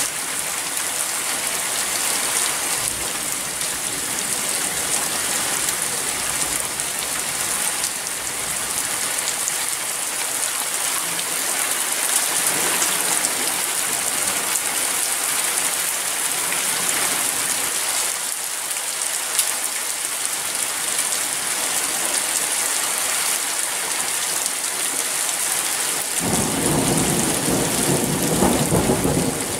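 Heavy rain falling steadily through a thunderstorm, with a rumble of thunder starting near the end.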